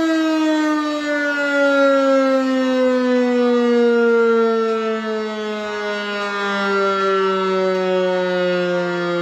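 DS 977 electric motor siren winding down, its loud wail falling slowly and evenly in pitch.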